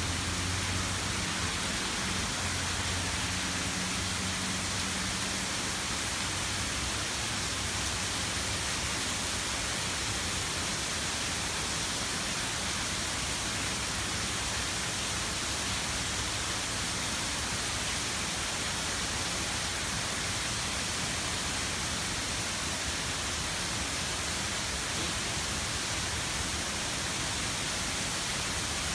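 Heavy rain falling steadily, an even hiss, with a low hum under it for the first several seconds.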